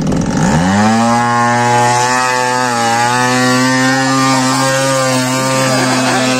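Small engine of a model fishing boat revving up in the first second, then running steadily at high speed.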